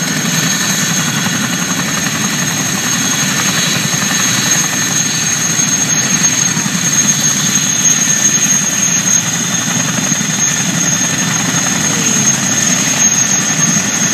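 Boeing CH-47 Chinook tandem-rotor helicopter running loudly, its twin turboshaft engines giving a steady high whine over a low, even rumble.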